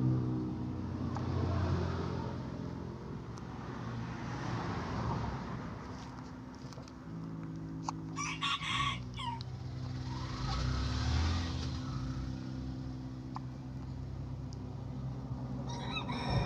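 A rooster crowing, about eight seconds in and again starting near the end, over a steady low motor hum that shifts in pitch now and then.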